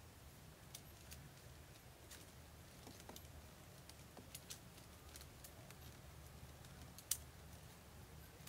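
Faint, scattered clicks and taps of thin wooden sticks being handled and lashed together with cord, with one sharper click about seven seconds in, over a faint low rumble.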